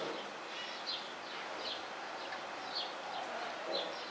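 Small birds chirping in the background, short high chirps repeating every half second or so over a steady outdoor hiss.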